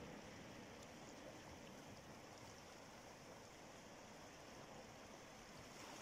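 Faint, steady wash of calm sea water moving over shoreline rocks.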